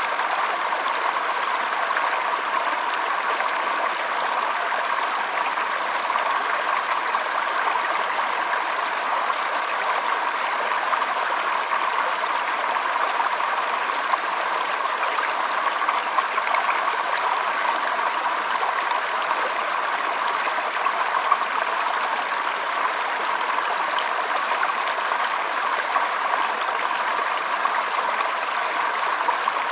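Water flowing steadily, an even rushing sound with no break or change.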